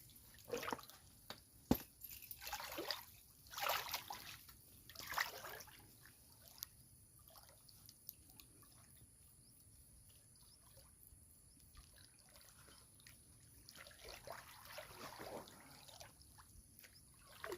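Water sloshing and trickling in a few short swishes, with a sharp click about two seconds in and a quiet stretch in the middle.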